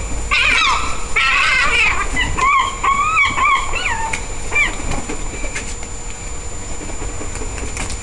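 Gulls calling, a run of loud, wavering cries through the first half, then quieter with the flapping of many wings as the flock lifts and lands.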